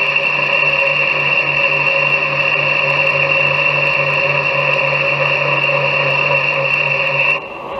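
Metal lathe running with a bushing spinning in its chuck: a steady high whine over a lower hum that pulses about four times a second, cutting off suddenly near the end.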